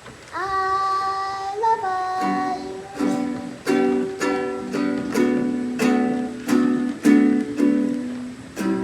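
Ukulele being strummed in a steady rhythm, about two strums a second, from about two seconds in. Before that, a child's voice sings a held, wavering note.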